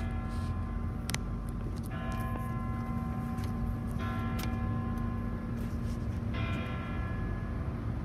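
Church bell struck about every two seconds, each stroke ringing on and overlapping the next, over a steady low rumble of traffic.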